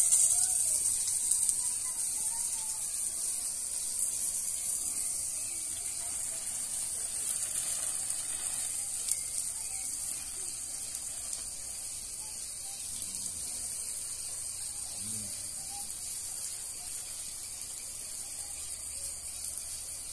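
Steady high-pitched hiss of outdoor ambience, with a few faint chirps in the first couple of seconds.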